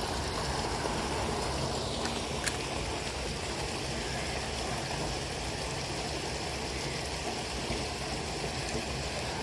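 Steady rush of water flowing past a concrete weir's pillars, with one faint click about two and a half seconds in.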